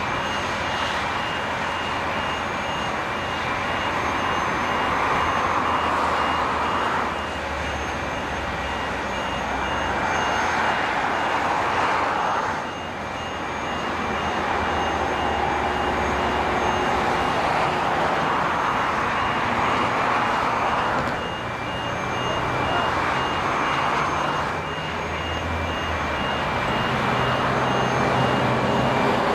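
Heavy construction machinery running steadily, with a low engine hum under a broad mechanical drone, and a warning alarm beeping in an even, continuous series.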